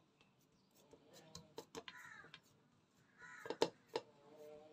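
Silicone spatula tapping and scraping on a plastic plate while spreading and pressing thick, hot halwa flat: a handful of light taps, the sharpest about three and a half seconds in. Two brief faint calls sound in the background, a little before and after the middle.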